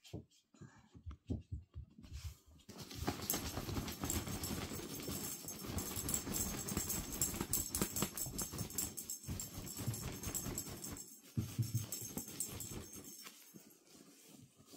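Puppies scuffling and tussling on blankets, making a dense rustling, crackling noise from about two seconds in until about eleven seconds, then a few quieter scuffs.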